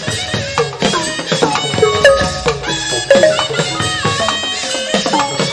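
Burmese hsaing waing ensemble playing dance music: quick pitched drum-circle notes, many sliding down in pitch, over sharp clacking percussion.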